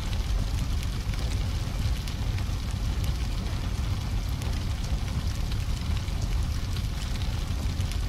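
Long tail of a big car explosion sound effect: a steady low rumble with scattered crackles.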